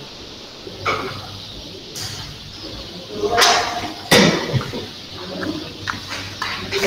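Scattered knocks and rustling noises, with a louder rustle about three and a half seconds in and a sharp knock just after it.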